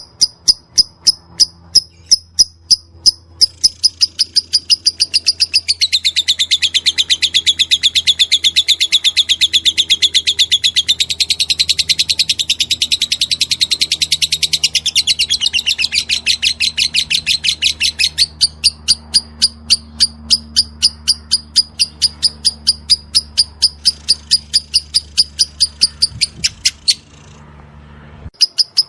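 Lovebird singing in the "ngetik" style: rapid, evenly spaced high ticks like typing. For about twelve seconds in the middle these break into a dense, loud chattering trill, then go back to ticking. The sound stops for a moment near the end.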